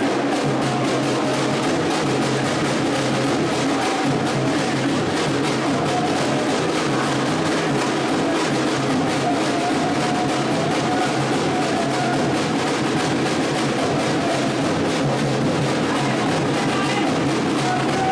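Background music with a steady drum beat and bass line.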